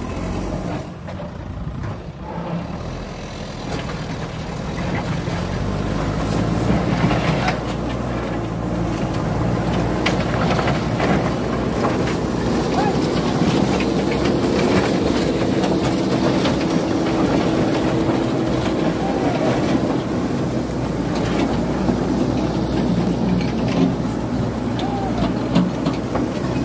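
JCB backhoe loader's diesel engine running hard under load as its front bucket pushes over brick walls, with repeated scraping and crashing of bricks and rubble. The engine gets louder about six seconds in.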